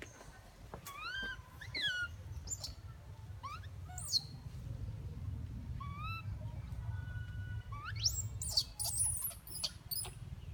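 Baby pig-tailed macaque calling: repeated short coos that rise in pitch, breaking into higher, shriller squeals about eight seconds in, over a low steady rumble.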